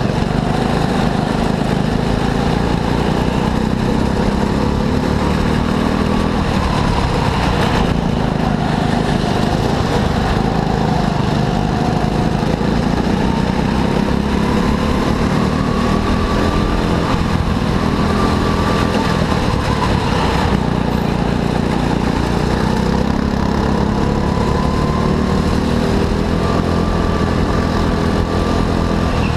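Go-kart engine running continuously under load, its pitch slowly rising and falling with the throttle.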